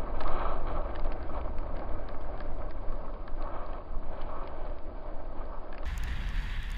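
Strong wind blowing over the microphone, a steady low rumble with scattered faint ticks, as the boat sits at anchor on choppy water.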